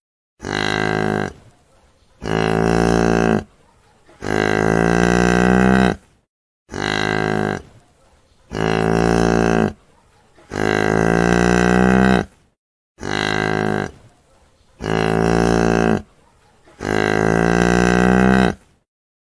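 Cow mooing: a short moo, a second one and a long drawn-out moo, the same group of three calls repeating three times.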